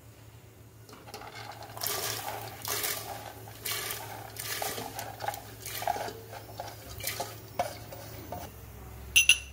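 Soaked chana dal poured from a steel bowl into hot water in a stainless-steel pressure cooker, with a spoon scraping and knocking against the bowl to push out the last lentils. A couple of sharp metallic clinks come near the end.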